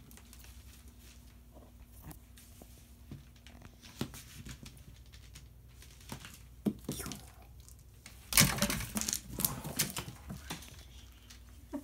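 Scattered light taps and clicks of a wand toy and a cat's paws on a hardwood floor. About eight seconds in, a loud burst of scrambling lasting about two seconds as the cat pounces on the toy.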